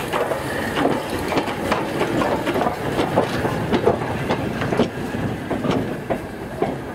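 LNER B1 steam locomotive 61264, running as 61002 Impala, passing close at low speed: a run of clicks and knocks from its wheels and running gear over a steady rumble, fading near the end as it moves away.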